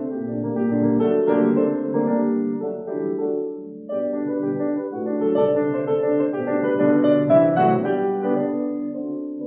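Classical piano music: sustained chords and a flowing melody, with a new phrase coming in about four seconds in.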